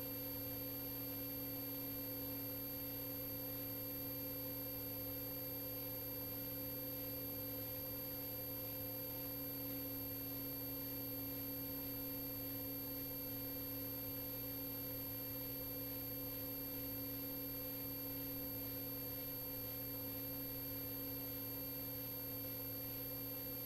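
Steady electrical hum with a few faint, unchanging tones on a radio or intercom audio line, with nothing else happening.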